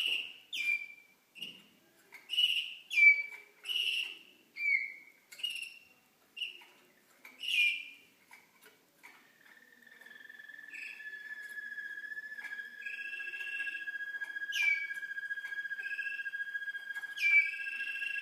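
Young Waterslager (Malinois) song canaries singing. For the first nine seconds it is a string of short separate whistled notes; then a long, steady, held whistle tone sets in, with other held notes layered above it.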